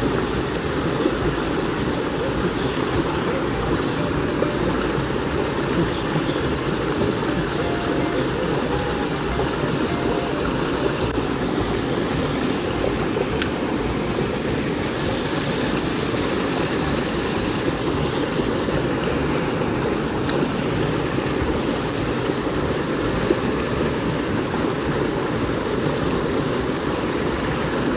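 Small cascade in a creek pouring into a pool, a steady rush of water.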